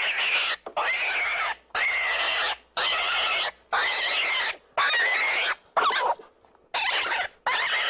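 An animal squealing: a run of about nine harsh, noisy squeals, each under a second long with short gaps between them and a slightly longer pause near the end.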